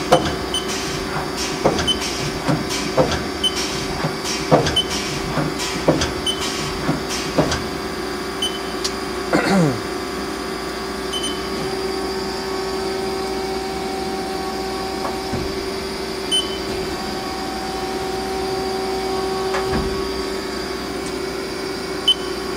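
Haas SL-20T CNC lathe turret indexing through its tool stations: a run of regular clunks about every half second over the machine's steady hum. About ten seconds in a falling whine, then a steady higher whine through much of the rest.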